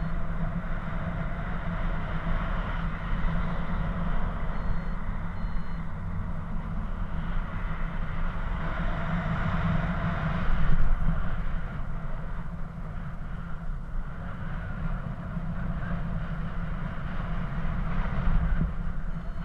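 Wind rushing and buffeting over an action camera's microphone during paraglider flight: a steady rumbling roar that swells briefly about ten seconds in.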